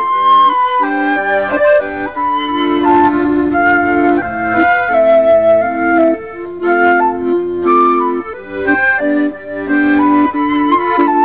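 Flute and accordion playing a waltz: the flute carries the melody over sustained accordion chords.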